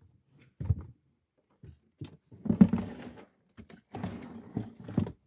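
Irregular knocks and bumps with rustling, as gear and the catch are handled in a small fishing boat.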